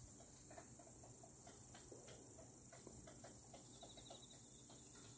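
Near silence with faint insects: a steady high buzz, a short pulsed chirping trill near the end, and scattered soft ticks.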